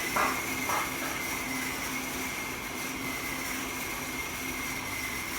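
Wood-cutting saw machine running steadily with a constant high whine, with two or three short sharp sounds in the first second.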